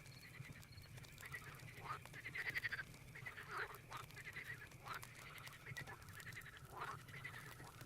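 Night forest ambience: crickets and other insects trilling steadily, frogs croaking in repeated short calls, the loudest about two and a half seconds in, and a campfire crackling with scattered sharp pops.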